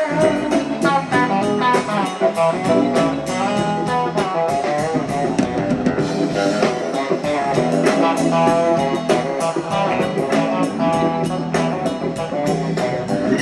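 Live electric blues-rock band playing an instrumental passage: an electric guitar plays a bending lead line over a steady drum beat.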